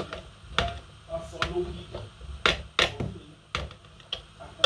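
A metal fork tapping against the rim of a plastic tub and a metal pot, knocking sticky green okra off into the soup. The taps are sharp and come at irregular intervals, about six or seven of them.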